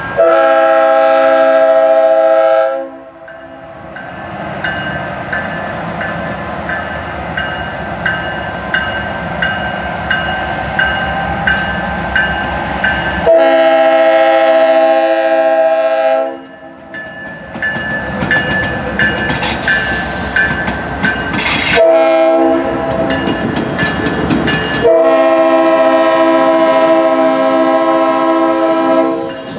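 Norfolk Southern diesel locomotive's multi-note air horn sounding long, long, short, long, the grade-crossing signal, as the lead units pass. Between the blasts the locomotives' diesel engines run and the wheels clack over the rails.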